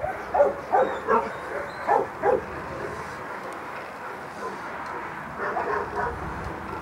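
A dog giving a quick run of short, high yips in the first two or three seconds, then a few fainter ones near the end.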